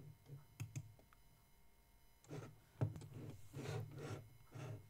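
Faint clicks of a computer keyboard and mouse, a few separate clicks in the first second and softer irregular clicking later on.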